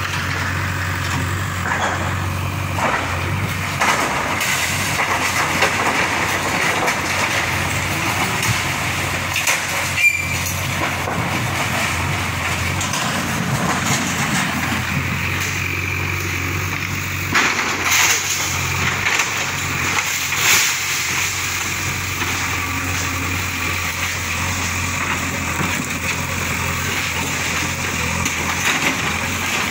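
JCB backhoe loader's diesel engine running steadily under load as its arm and bucket tear down a small brick-and-tile shop. Crashes of breaking roof sheets, tiles and masonry come on top, the sharpest about a third of the way in and a cluster just past the middle.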